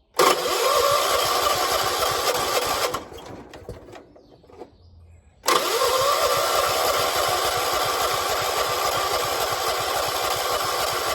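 1976 John Deere 300 garden tractor's electric starter cranking the engine in two long tries, about three seconds and then about six, each with a short rising whine as the starter spins up. The engine turns over but does not catch: a hard start, on a jump for a dead battery.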